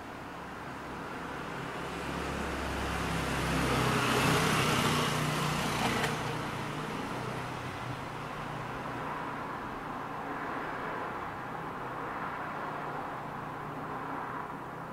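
A car passing on a nearby road, heard through a window: tyre and engine noise swells to a peak about four seconds in, then fades into steady traffic noise. A short click about six seconds in.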